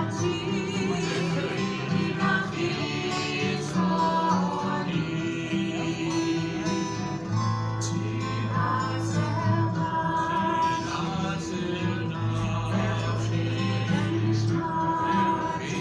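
Background music with singing voices over slow, held chords and a bass line.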